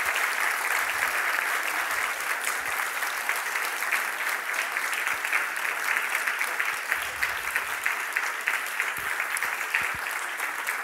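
Audience applauding steadily, many hands clapping at once, easing off a little near the end.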